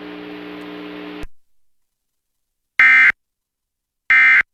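Emergency Alert System end-of-message code: two short, loud, buzzy data bursts a little over a second apart, marking the end of the alert. Before them a steady low hum runs for about a second and cuts off, followed by silence.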